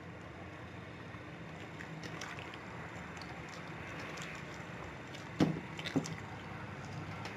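Wet slime studded with foam beads being kneaded and lifted by hand in a glass dish of blue liquid detergent activator: soft squelching and sloshing, with two sharper wet squelches about half a second apart near the end.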